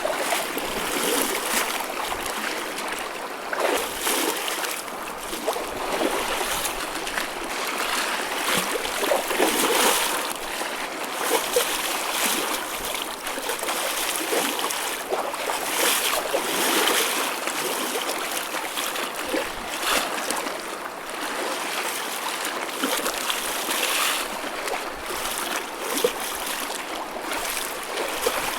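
Choppy ocean waves washing and splashing, a continuous rush of water broken by irregular small splashes every second or two.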